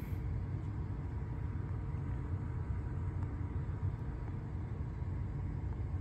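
FASCO Great Room ceiling fan running steadily: a low rumble with a faint, even motor hum above it.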